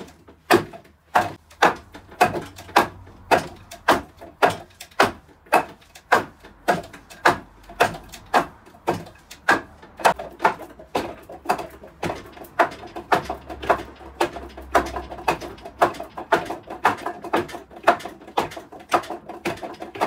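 Wing Chun wooden dummy knocked again and again by forearms and hands during blocking and striking drills: sharp wooden clacks in a steady rhythm of about two to three a second.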